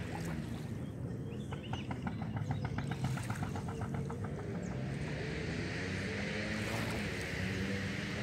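Boat engine running steadily at a distance, with a run of rapid ticking, about nine a second, for a couple of seconds near the start and a rushing hiss of water or wind building from about halfway.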